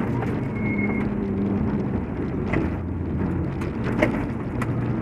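Subaru Impreza WRX STI rally car's turbocharged flat-four engine pulling at fairly steady revs, heard inside the cabin over gravel and tyre noise. A few sharp ticks of stones strike the car.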